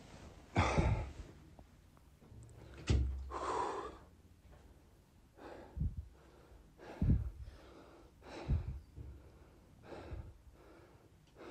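Heavy breathing close to a phone microphone: about six loud breaths, a second or two apart, some with a low thump of air hitting the mic. A singer short of breath after singing live, which is put down to his heavy smoking.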